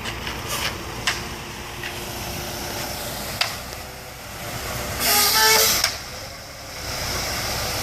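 Heavy diesel equipment running steadily at a concrete pour, with a few short clicks or knocks. About five seconds in comes a loud hiss with a horn-like tone that lasts under a second.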